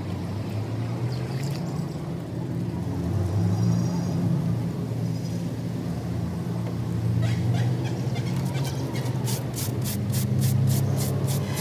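An engine running with a steady low rumble that swells and eases a little. From about nine seconds in, quick, even scrubbing strokes of a scouring pad on a radiator core's fins.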